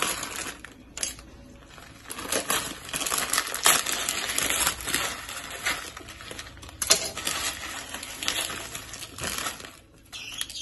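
Dry Indomie instant noodle blocks being broken apart by hand, a run of crackling snaps and small pieces dropping into a bowl, with the plastic wrapper crinkling.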